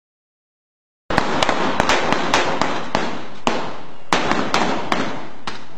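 An irregular series of sharp cracks, about two or three a second, over a steady hiss, starting suddenly about a second in.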